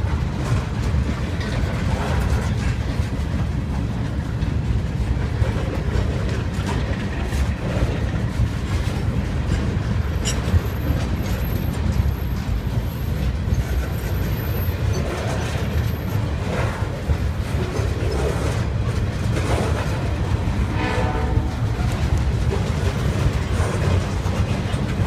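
Freight train boxcars rolling past close by: a steady rumble and rattle of steel wheels on the rails.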